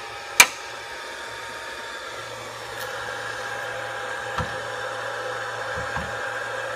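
Steady fan-like whirr of a BGA rework station running its preheat, with a sharp click about half a second in; a low hum joins about two seconds in, with a few faint knocks after.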